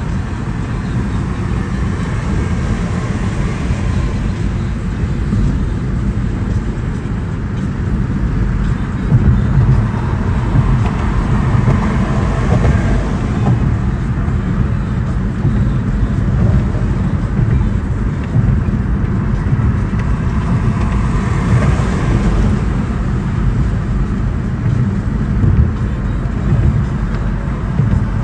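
Steady road noise inside a moving car at highway speed: a low rumble of tyres and engine that gets a little louder about nine seconds in.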